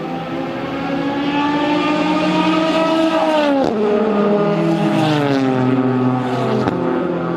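GTE-class race car engine at high revs, its pitch climbing slowly, then falling steeply about halfway through and dropping again about a second and a half later. It switches abruptly to another engine note near the end.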